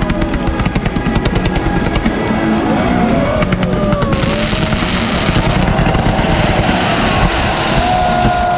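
Fireworks fired from a stadium field: rapid crackling reports, then about four seconds in a sudden loud hissing spray of fountain fireworks. Music plays underneath.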